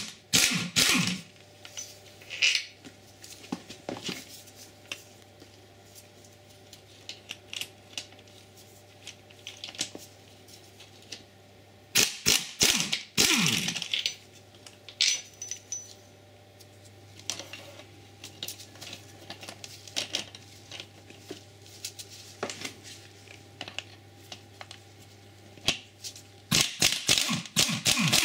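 Metal hand tools working the engine-to-gearbox bolts: three bursts of rapid metallic clicking and clinking, one at the start, one near the middle and one near the end, with scattered single clicks between them over a faint steady low hum.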